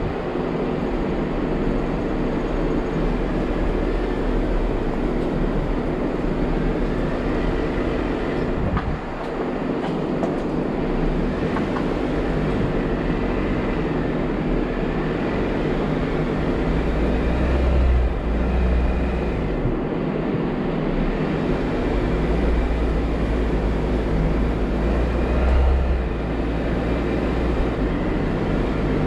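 Jeep Wrangler driving on a dirt forest trail: steady engine and tyre rumble with rattling. Two louder low swells come about two-thirds of the way through and again near the end.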